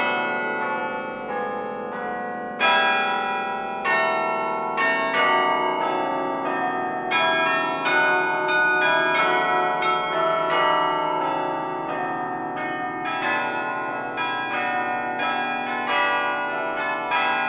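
Bells pealing: a quick, continuous succession of struck bell notes, each ringing on and overlapping the next.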